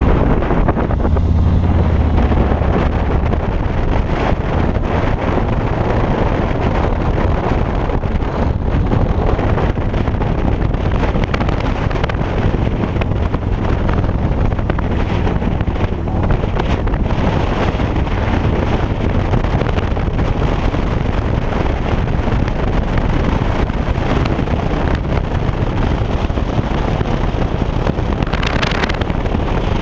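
Harley-Davidson touring motorcycle's V-twin engine running steadily at road speed, with heavy wind noise buffeting the microphone.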